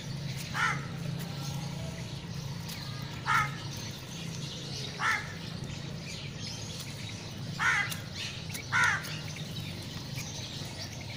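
A crow cawing five times: short single calls one to three seconds apart, over a steady low hum.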